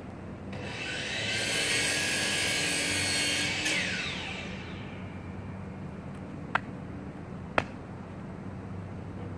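A high-pitched machine whine swells up for about three seconds, then drops in pitch and fades, over a steady low hum. Two sharp clicks sound near the end.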